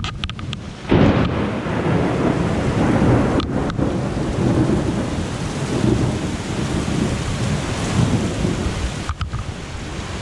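Heavy rain falling with thunder: a sudden crack about a second in that rolls on as a low rumble for several seconds and eases off near the end.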